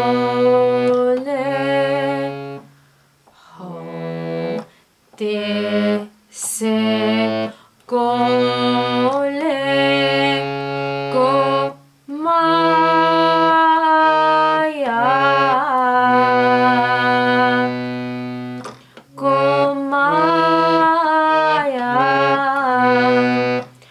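Harmonium playing a kirtan melody note by note while a woman sings the words along with it, in short phrases broken by brief pauses.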